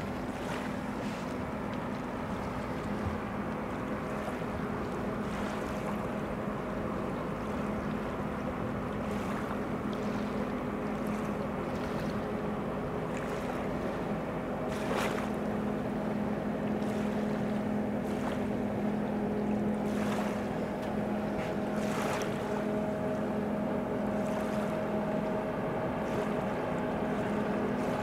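Distant engine drone of the ferry MV Salish Orca: a steady low hum with a fainter higher steady tone, getting slightly louder as the ship approaches. A few short clicks sound over it.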